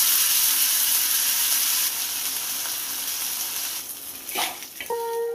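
Pomfret fish sizzling in hot oil on a flat tawa griddle, the sizzle slowly easing. About four and a half seconds in, a spatula gives a brief scrape on the pan, and music starts just before the end.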